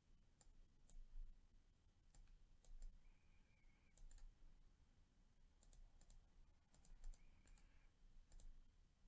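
Faint computer mouse clicks, scattered and often in quick pairs, over quiet room tone.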